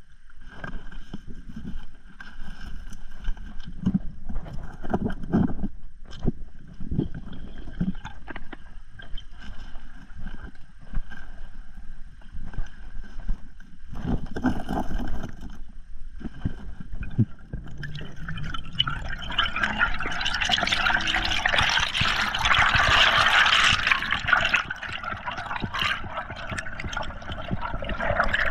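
Underwater sound picked up by a diver's camera: scattered low knocks and thumps of hands working on the seabed. About two-thirds of the way in, a louder, steady rush of water begins as the diver swims up toward the surface.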